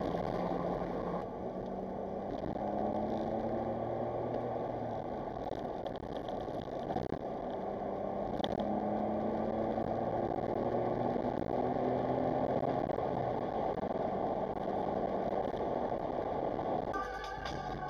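Smart Roadster Brabus's small turbocharged three-cylinder engine running under way, its pitch climbing in several long, slow rises over steady road and wind noise. Guitar music comes in near the end.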